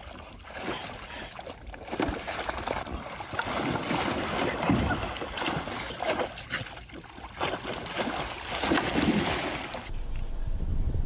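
Shallow river water splashing and sloshing as a dog and a person wade beside a kayak, with wind on the microphone.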